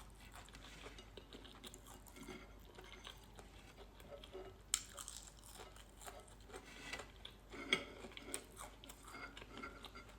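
A person chewing and biting food, faint irregular crunching and mouth sounds, with a couple of sharper clicks about five and eight seconds in.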